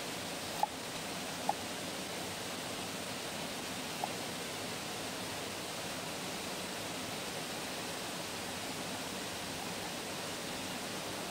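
Steady rushing of a small forest waterfall, with three short sharp ticks in the first few seconds.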